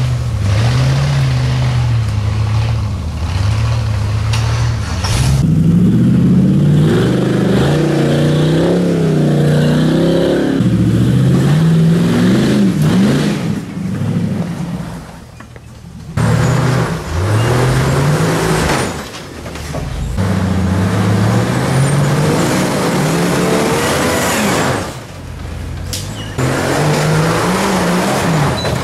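Off-road rock crawler engines revving in repeated bursts, the pitch rising and falling as the rigs work their way over rock ledges, with a short break about halfway through.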